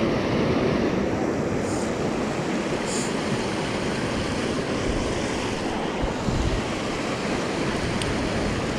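Shallow river water rushing over a rocky riffle, a steady rush of noise, with some wind buffeting the microphone.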